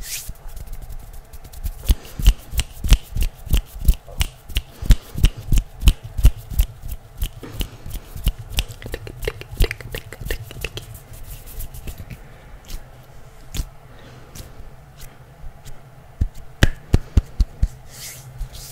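Hand sounds close to a microphone: quick, crisp clicks and rustles of fingers and palms. They come thick and fast through the first half, thin out for a few seconds, then return in a quick run near the end.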